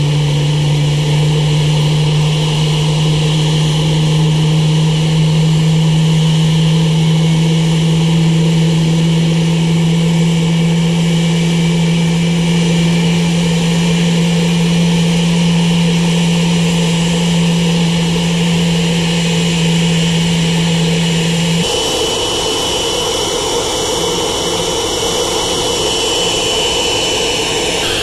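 Boeing 777-200ER's two turbofan engines running steadily on the ground, a loud jet whine over a strong low hum. About three-quarters of the way through the sound changes abruptly: the low hum drops out and a high, steady whine stands out.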